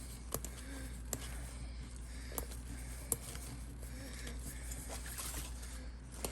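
Scattered light clicks and taps of hard 3D-printed plastic parts being handled and screwed together by hand, over a steady low hum.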